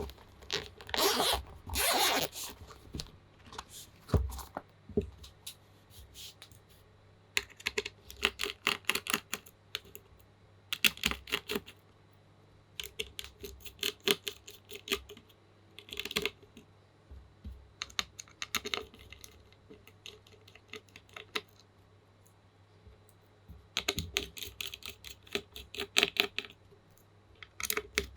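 Typing on a plateless TU40 mechanical keyboard with lubed Gateron Pro Milky Yellow linear switches: bursts of rapid key clacks with short pauses between them. Two brief scraping noises come about a second and two seconds in.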